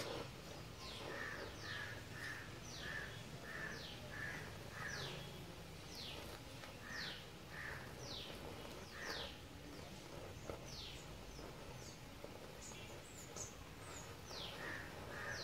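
Small birds chirping: many short high calls that each fall in pitch, repeated all through, with runs of quick lower notes near the start and again near the end, over a faint steady hiss.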